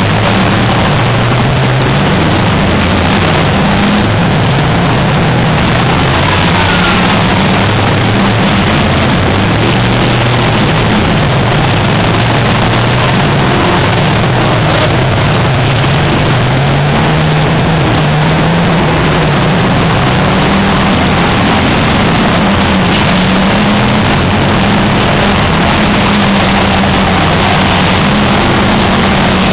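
Several stock car engines running hard on a dirt track, their pitch rising and falling as the cars accelerate and lift off, over a steady rushing noise.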